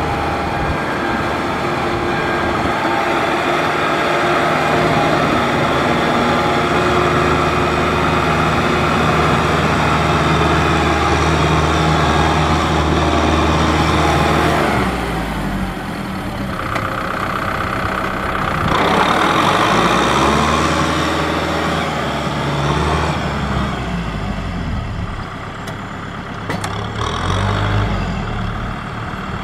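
Tractor diesel engine working hard as the tractor churns through deep mud, running steadily at first, then revving up and down in the second half.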